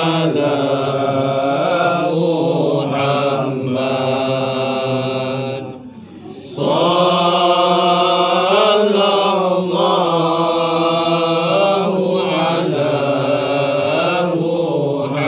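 A group of men chanting zikir together in one melody, in long drawn-out phrases, with a short break about six seconds in.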